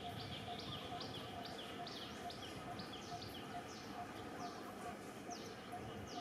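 Outdoor birdsong: short, high chirps that drop in pitch, repeated about two or three times a second, over a regular low note about twice a second and a steady background hiss.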